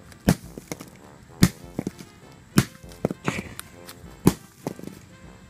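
A hammer driving a nail: hard, sharp blows about once a second, with a few lighter taps between.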